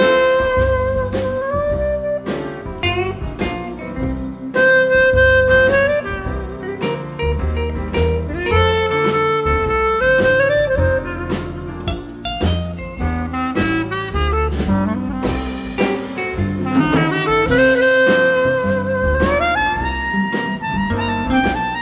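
Jazz music: a horn lead plays long held melody notes, sliding between some of them, over a walking low bass line and drums.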